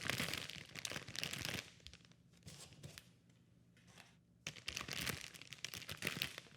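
Plastic packaging crinkling and rustling as it is handled, in two spells with a quiet pause of about three seconds between them.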